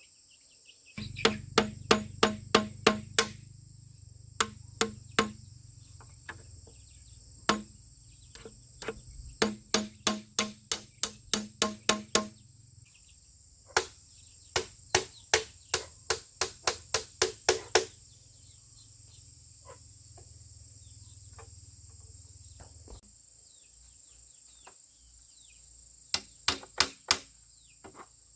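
Bursts of rapid hard strikes on bamboo, about three to four a second, each with a short pitched ring, in four runs separated by pauses. A steady high insect drone runs underneath.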